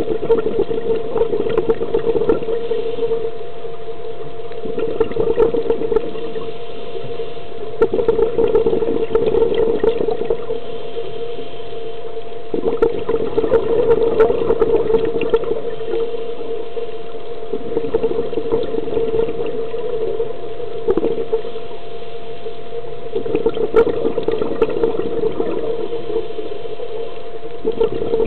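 Underwater recording of a scuba diver breathing through a regulator: bursts of rushing exhaled bubbles every few seconds over a steady hum.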